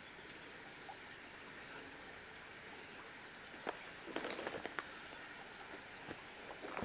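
Quiet outdoor ambience with a faint steady hiss, broken by a few sharp clicks and a short cluster of crackles and rustles about four seconds in.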